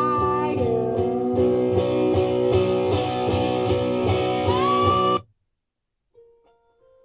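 Guitar music with a melody line that slides in pitch, played through a pair of Aiwa Orb Bluetooth speakers; it cuts off suddenly about five seconds in. After a second of silence a much quieter track with separate plucked notes begins near the end, the next song starting.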